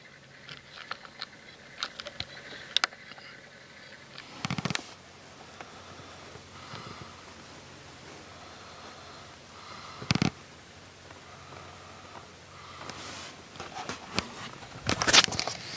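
Quiet car interior with scattered clicks and rustles from the handheld camera being moved, two short thuds about four and a half and ten seconds in, and louder rustling near the end.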